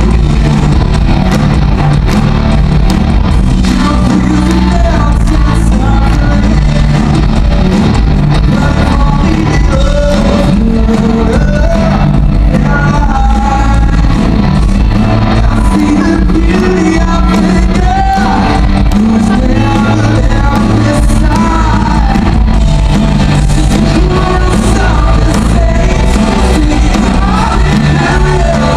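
Live rock band playing: a sung lead vocal over electric guitars, bass and drums, loud and amplified in a large arena.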